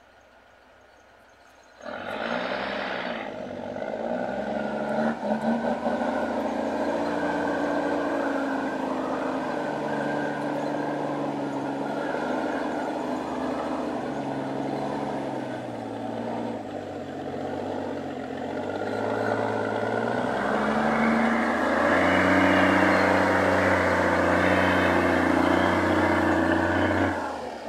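Heavy diesel engine of a loaded log truck labouring up a steep dirt grade, its pitch wavering under load. It comes in suddenly about two seconds in and grows louder over the last few seconds.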